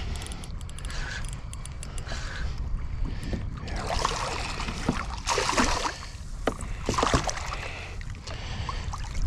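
Water splashing and sloshing at the side of a kayak, in a few louder bursts between about four and seven and a half seconds in, over a low steady rumble.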